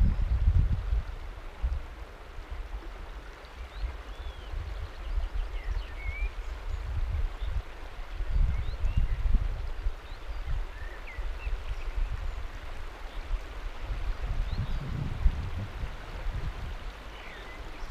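The Lech river flowing steadily past a rock shelf, its water rushing and lapping at the edge. Low gusts of wind buffet the microphone now and then, and a few short, high chirps from small birds come through.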